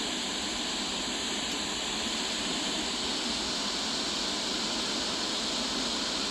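Steady radio static hiss with no voice on the channel.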